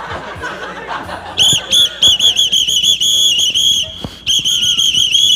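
A whistle blown in a run of short, quick, shrill toots, starting about a second and a half in, with a brief pause around four seconds before the toots resume.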